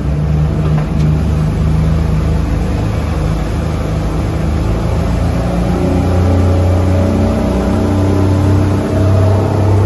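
Motorboat engine running under throttle, its drone rising slightly in pitch as the boat picks up speed leaving the marina.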